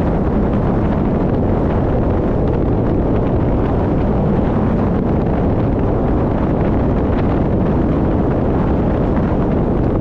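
Steady wind noise rushing over the microphone of a camera on a moving car, with the car's road noise underneath.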